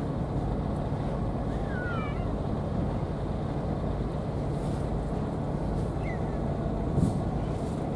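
Cats meowing faintly: two short falling calls, about two seconds in and about six seconds in, over a steady low rumble. A dull thump about seven seconds in.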